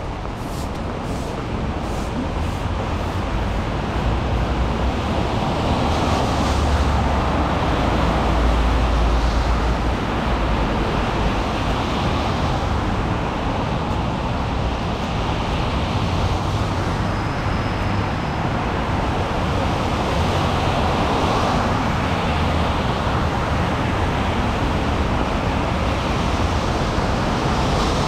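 Road traffic on a rain-wet street: tyres hissing on the wet surface over a low engine rumble, swelling as vehicles pass. A few sharp ticks in the first few seconds.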